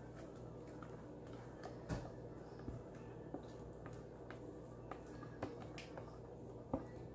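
Scattered light clicks and taps of a spatula scraping thick corn batter out of a plastic blender jar into a mixing bowl, with a sharper knock near the end, over a faint steady hum.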